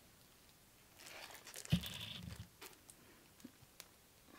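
Handling noise: a shiny bookmark sheet rustling and crinkling and a small plastic figurine being turned in the hands, starting about a second in, with one soft knock near the middle and a few light clicks after.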